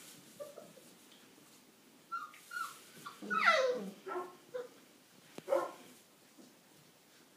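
Five-week-old Old English Sheepdog puppies yipping and giving little barks as they wrestle: a run of short high calls from about two seconds in, the loudest a yelp that falls in pitch midway, the last one about five and a half seconds in.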